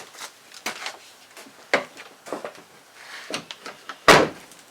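Scattered light clicks and knocks from hand work on a pickup's door and its handle hardware, then one heavy thump about four seconds in.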